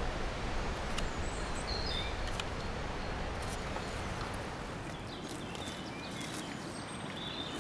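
Woodland ambience: a steady hiss of outdoor air with short bird chirps now and then. There are also a few small ticks and rustles from clothes and a card being handled.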